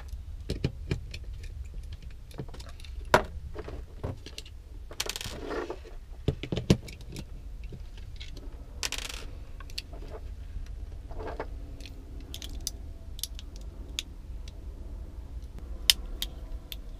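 Scattered sharp clicks and taps of a plastic 12-volt socket splitter and its cord being handled and pried open, with a couple of brief scrapes, over a steady low hum.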